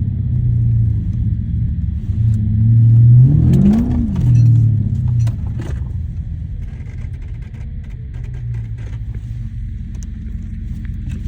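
Chrysler 300 SRT8's 6.4-litre Hemi V8 running under way with a steady low drone. Around three to four seconds in it gets louder and the revs rise briefly and fall back, then it settles into a quieter steady cruise.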